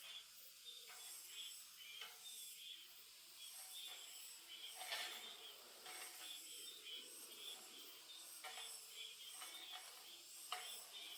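Faint chorus of small wild birds chirping in short, repeated high notes over a steady high hiss.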